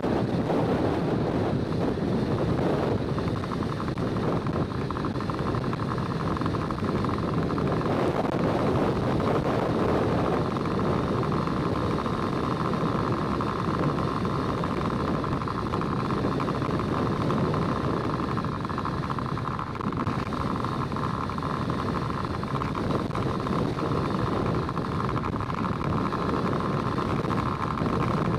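Steady driving noise of a vehicle travelling along a paved road: road rumble and engine, with a steady higher whine joining about three seconds in.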